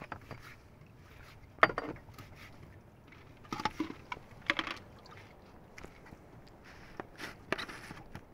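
A kitchen knife knocking on a wooden chopping block as raw fish is cut, a few sharp, irregular strikes, the loudest about one and a half seconds in.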